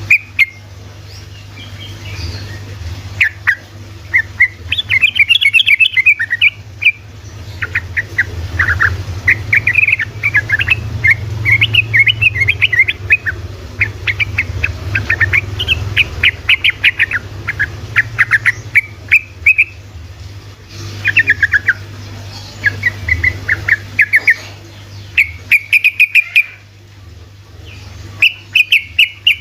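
Yellow-vented bulbul (trucukan) singing a fast, chattering run of rapid notes (the "ropel" style prized by keepers), broken by a few short pauses, over a steady low hum.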